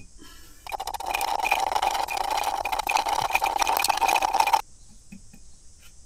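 Metal spatula scraping and clinking round the inside of a glass jar, stirring fumed silica powder into epoxy to thicken it into glue. It starts about a second in and stops abruptly about a second and a half before the end.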